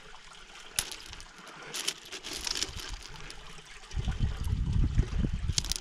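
Pebbles clicking and clinking as they are picked from a tub of gravel by a neodymium magnet, which is drawing out the iron-rich ironstone stones, over a steady trickle of water. From about four seconds in, a loud low rumble on the microphone takes over.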